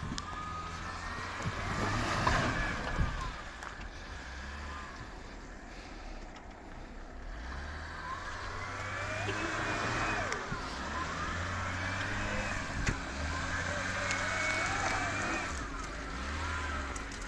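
A vehicle engine running low and steady, with squealing tones that rise and fall every few seconds over it, the odd noise the owner is puzzling over.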